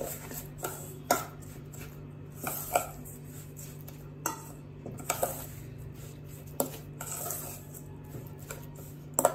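A steel spoon scraping and clinking against a stainless steel bowl, in irregular strokes, while mixing semolina and curd into a thick, crumbly batter, over a steady low hum.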